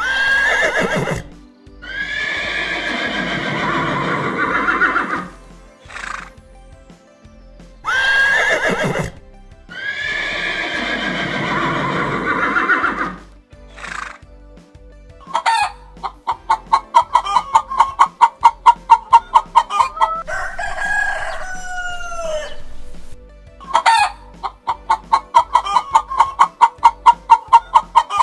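Two long, harsh animal calls, each preceded by a short cry. Then a hen cackles twice: a run of rapid clucks, about six a second, grows louder and ends each time in a long drawn-out squawk.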